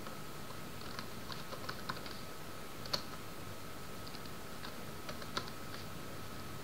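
Typing on a computer keyboard: irregular, scattered keystroke clicks, one a little louder about three seconds in.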